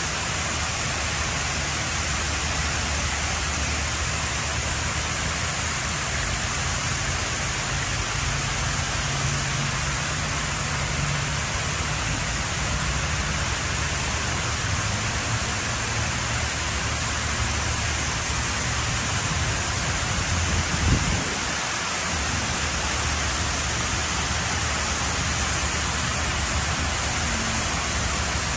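Steady rushing hiss of water sheeting down a tall fountain wall and splashing into the trough at its base. A brief low thump about two-thirds of the way through.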